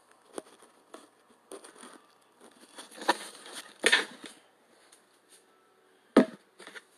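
Handling noise from the recording phone being moved and set up: scattered knocks, taps and rustles, the loudest a sharp knock about six seconds in.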